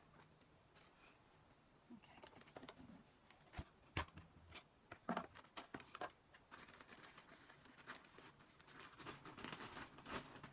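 Faint clicks and knocks of small black plastic plant pots being pulled off a stack and set down, starting about two seconds in. Near the end comes a rustle as the plastic potting-mix bag is opened and handled.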